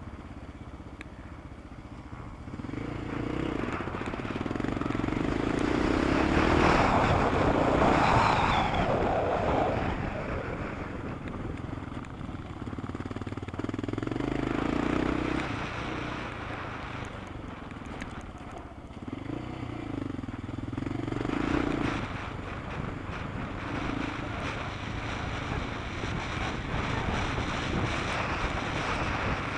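Onboard sound of a racing vehicle's engine on a dirt track, pulling hard several times and easing off between pulls. A loud rushing noise peaks about eight seconds in.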